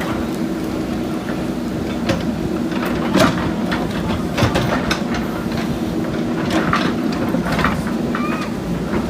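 JCB backhoe loader's diesel engine running steadily, with scattered sharp knocks and clanks from the digging work, the loudest a little after three seconds in.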